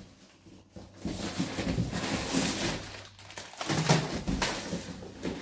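Rustling and scattered light knocks of papers and school books being handled and sorted, starting about a second in, pausing briefly, then going on.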